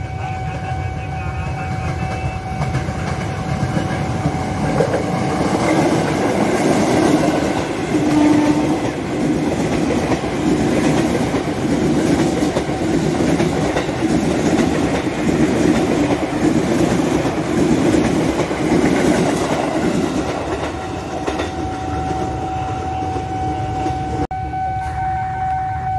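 KRL commuter electric train passing close by, its wheels clattering over the rail joints for about fifteen seconds. Before and after it a level-crossing warning signal sounds a steady tone.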